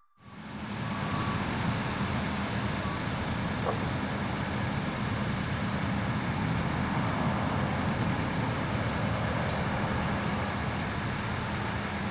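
Boeing 737-800's CFM56-7B jet engines on final approach, a steady rushing noise with a low hum underneath, fading in over the first second.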